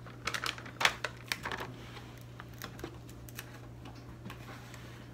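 Paper packets of dry hush puppy mix being shaken and tapped out into a plastic mixing bowl: a quick run of light crinkles and taps in the first two seconds, then a few scattered clicks.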